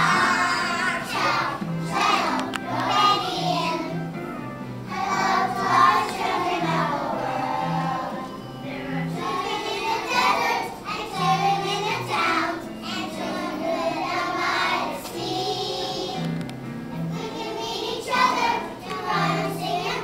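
A group of preschool children singing a song together in chorus, over a musical accompaniment with low held notes.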